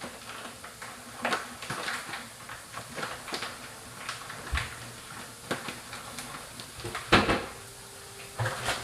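Kitchen handling noises: scattered clicks, knocks and rustles as things are moved about and set down, with the loudest knock about seven seconds in.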